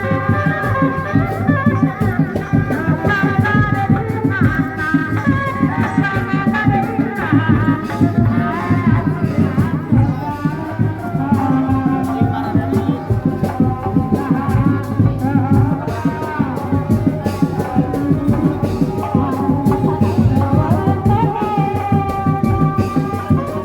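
Live West Javanese kuda lumping ensemble music: fast, dense drumming with a rattling percussion beat under a high, wavering melody line.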